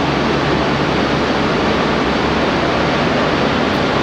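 Steady, even roar of industrial background noise filling the steel mill hall, with a faint low hum under it and no strokes or rhythm.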